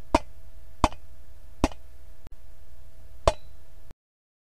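Sharp single knocks on wood, four of them at uneven spacing, standing in for a black woodpecker pecking a tree trunk, over a steady background hiss and faint hum. The sound cuts off abruptly near the end.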